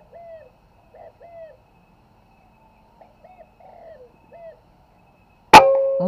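A few faint short bird chirps, then about five and a half seconds in a single sharp shot from a local FX-style air rifle, followed by a metallic ringing that lingers and fades.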